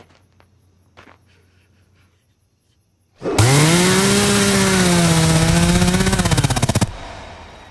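A chainsaw bursts in about three seconds in, revving up to full speed. It runs loud and wavering for about three and a half seconds, then cuts off sharply. A few faint clicks come before it.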